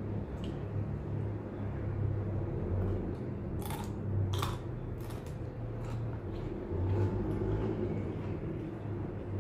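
Crunchy bites into a raw yard-long bean, two crisp crunches about halfway through followed by chewing, over a steady low hum.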